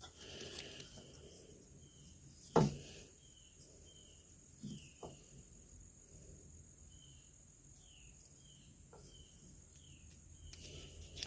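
Faint handling of a plastic wiring connector: one sharp click about two and a half seconds in and a few lighter ticks after it, over faint high chirps repeating about twice a second.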